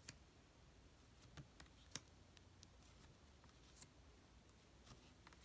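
A handful of faint clicks and slides of tarot cards being passed one at a time from the deck onto a pile in the other hand, over near silence.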